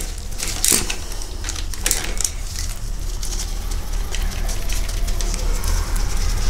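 Ratchet and 8 mm socket clicking in scattered short bursts as the bolts of a dirt bike's oil filter cover are loosened, over a steady low hum.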